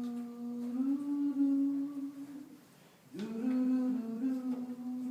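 A woman humming a slow song melody in long held notes. She sings two phrases, with a short pause for breath about three seconds in.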